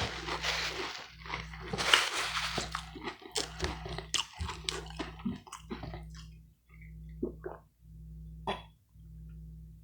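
Close-miked chewing and mouth noises: dense crackly chewing with many small clicks for about six seconds, then only a few scattered smacks. A low hum runs underneath.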